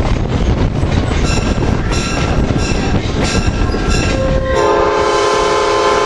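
Rumble and wind of a moving passenger train heard from the coach; about three-quarters of the way through, the diesel locomotive's air horn comes on as a steady chord and is held.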